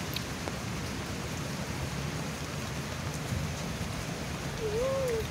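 Rain falling steadily on the open water of a reservoir, an even hiss of drops on the surface. Near the end, a short wavering bird call.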